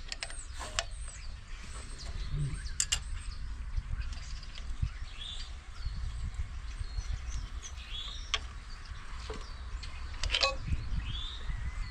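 Scattered metallic clicks and taps of hand tools working on an engine, with a few short bird chirps over a steady low rumble.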